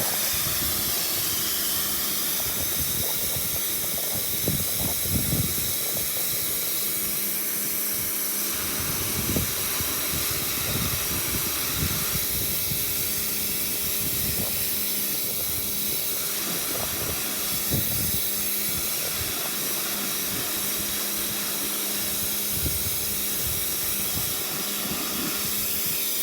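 Pressure washer running: a steady hiss of the high-pressure water jet over the pump's constant hum, with scattered low thumps.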